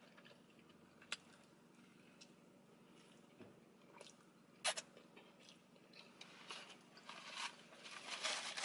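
Faint close-up sounds of a person biting and chewing food, with a few sharp clicks about a second in and just before five seconds, growing louder and denser near the end.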